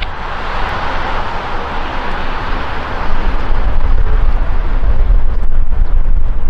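Jet aircraft noise heard outdoors, a steady rushing that grows louder about three seconds in, with a low, uneven rumble of wind on the microphone.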